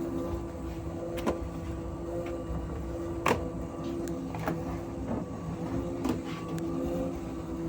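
Asko tumble dryer running with a steady hum, broken by irregular sharp knocks about once a second or two, the loudest about three seconds in.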